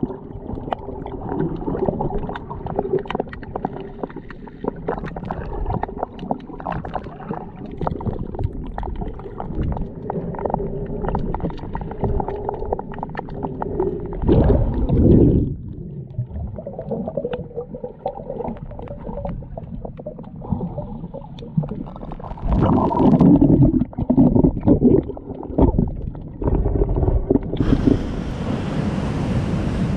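Underwater water noise in a seawater rock pool, heard through a submerged camera: muffled sloshing and gurgling with crackling ticks, swelling louder about halfway through and again later. Near the end the sound changes abruptly to open-air surf breaking on the rocks, with wind on the microphone.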